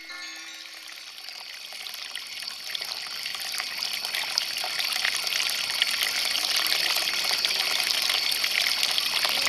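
Three water jets colliding in mid-air and splashing apart: a steady hissing spray full of fine splatter, growing steadily louder.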